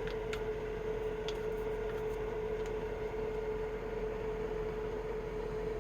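A steady mid-pitched hum, with a few faint clicks near the start and around two seconds in.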